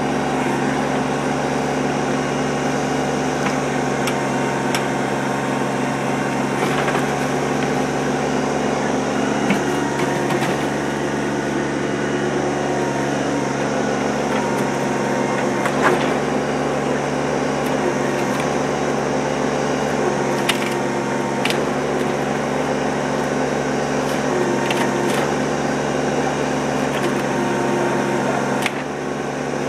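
Kubota backhoe's diesel engine running steadily under hydraulic work, with scattered sharp cracks and knocks of wooden boards being broken and shifted by the bucket.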